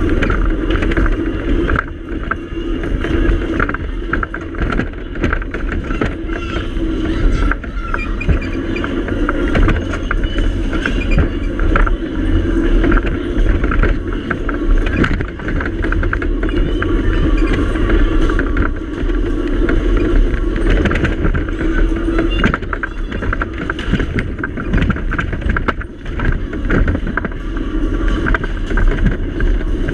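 Dodgem car driving around the track: a steady low rumble as it runs across the floor, with frequent knocks and rattles throughout.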